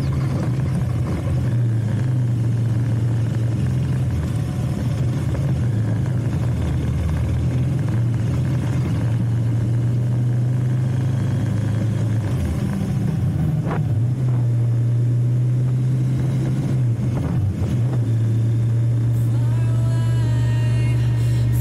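Single-cylinder engine of a Husqvarna Svartpilen 250 motorcycle running steadily under way, its note shifting briefly a little past halfway and again near the end.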